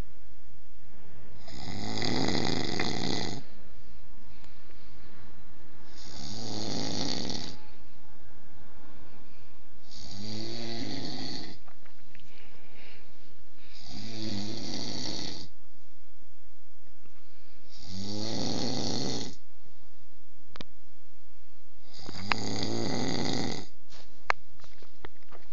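A person snoring in a steady rhythm, six snores about four seconds apart, each lasting about a second and a half, some with a rattle in them. A couple of small sharp clicks come near the end.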